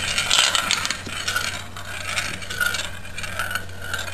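Marbles rolling and rattling around a plastic marble-run spiral bowl and down its plastic track, with many small clicks as they knock against the plastic.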